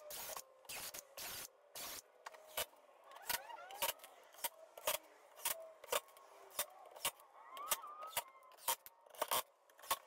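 Cordless drill and impact driver run in many short bursts, drilling pilot holes and driving screws into a plywood cabinet top; sharp clicks and brief motor whines that rise and fall come about twice a second.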